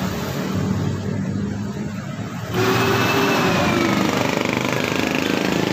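An engine running steadily, getting louder about two and a half seconds in, with a slowly wavering pitch.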